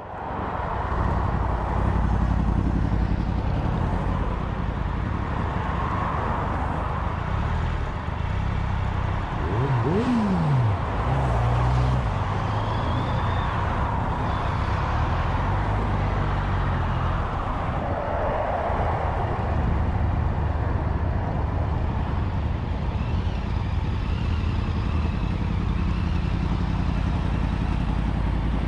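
Touring motorcycle on the move: steady engine drone under wind noise on an on-bike camera, with a short falling whine about ten seconds in.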